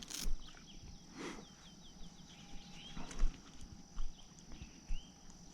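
Outdoor summer ambience: a steady high insect drone with a bird chirping in quick repeated downward notes, broken by a few short rustling bursts, the loudest about three seconds in.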